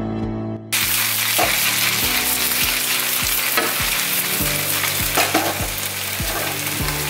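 Beef and wide rice noodles sizzling hard in a hot wok as they are stir-fried. The sizzle cuts in suddenly about a second in and holds steady.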